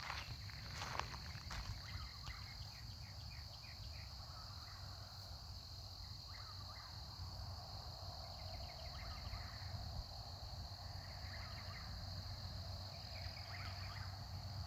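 Eastern whip-poor-will calling faintly and over and over, its short gliding phrase coming every couple of seconds, over a steady high-pitched insect chorus.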